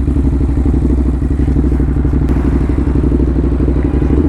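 Ducati motorcycle engine running at steady revs while riding, with a fast, even throb of firing pulses.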